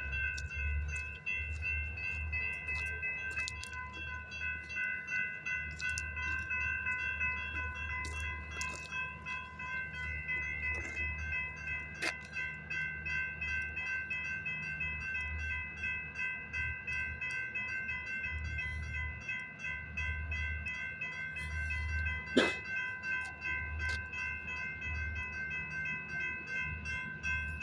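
Railroad grade-crossing warning bell ringing continuously with a fast, even repeat, over a low pulsing rumble. A single sharp knock comes near the end.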